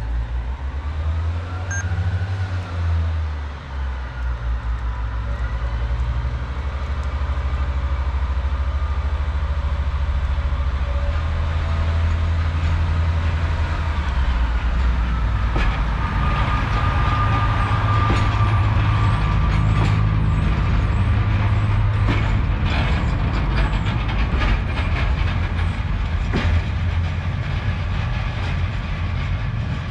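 Class 142 Pacer diesel railbus running close by: a steady low engine rumble, with a faint whine and a run of sharp clicks and knocks from the train in the second half.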